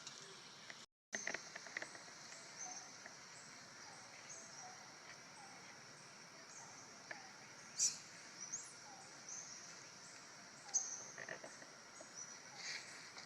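Faint outdoor ambience with many short, high-pitched chirps repeating through it, and a few scattered clicks.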